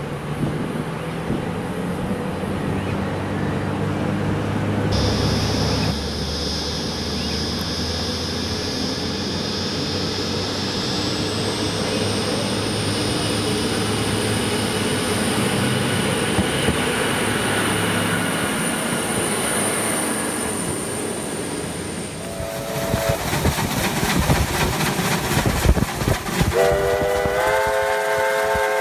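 Hunter diesel railcar running through a station, engine and wheels on the rails, with a high-pitched whine rising and then holding for several seconds partway through. Near the end, rail clicks and then a steam locomotive's chime whistle sounding, several notes together, held.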